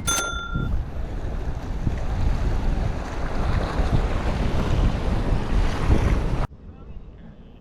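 Wind buffeting the microphone over the wash of sea surf, as a loud, steady rumble that cuts off suddenly about six and a half seconds in. A sharp click with a short ringing tone comes right at the start.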